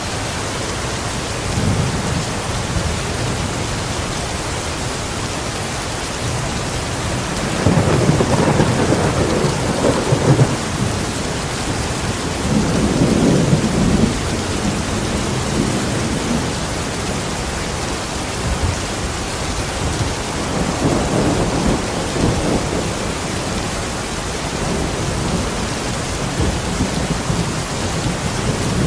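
Steady rain falling, with low rolling thunder rumbling up three times over the steady rain.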